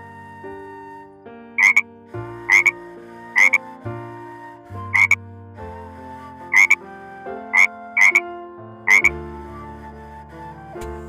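Eight short, sharp animal calls, about one a second and some in quick pairs, over background music of slow sustained chords.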